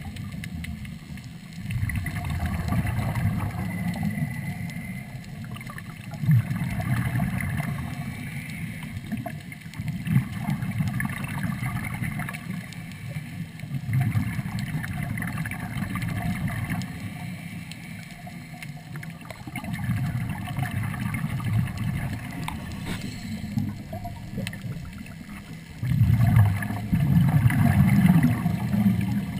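Muffled underwater sound through a GoPro housing: scuba-style regulator breathing from a Third Lung surface-supplied air hose, with exhaled bubbles rushing and gurgling in swells every few seconds. The swells are loudest near the end.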